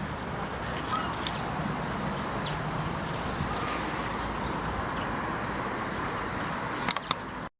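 Steady background noise with faint bird chirps, broken by a few sharp clicks about a second in and near the end; the sound cuts out abruptly just before the end.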